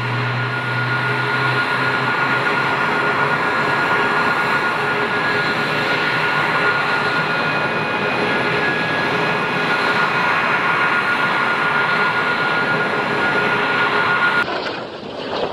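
Fighter jet engine running with a steady roar of noise and a thin high whine over it, cutting off suddenly near the end, where a quieter, duller noise takes over.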